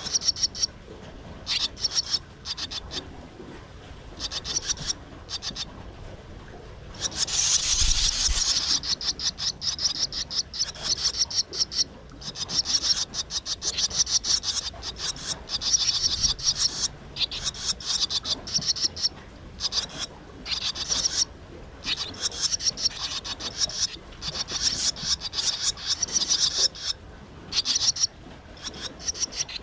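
Swallow chicks in the nest giving rapid, raspy, high-pitched begging chatter in bursts, swelling loudest about seven seconds in and again through most of the second half: the sound of nestlings begging to be fed.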